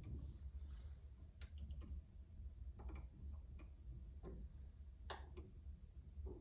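Wood fire crackling faintly in a fireplace: scattered, irregular sharp pops and clicks, about a dozen over several seconds, over a low steady hum.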